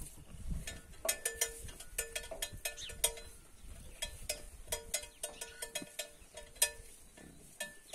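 Light metallic clinks, each with a short ringing tone at the same pitch, repeating irregularly several times a second.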